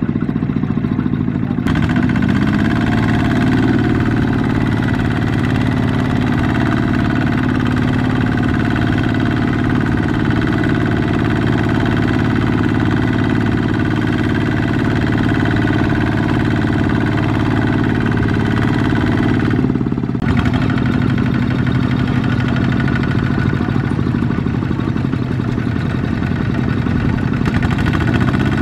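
Two-wheel walking tractor's single-cylinder diesel engine running steadily under load as its wheels churn through deep paddy mud, with brief breaks about two and twenty seconds in.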